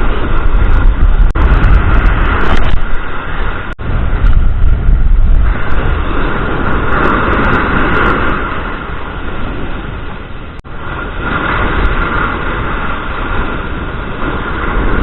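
Strong gusty wind rumbling on the microphone of a cased camera, with surf breaking and washing up the beach; the rushing noise swells and eases over several seconds.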